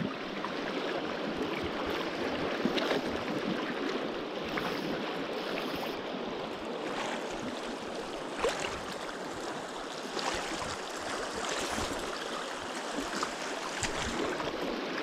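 Rushing water of a strong river rapid, a steady hiss, with a few faint clicks over it.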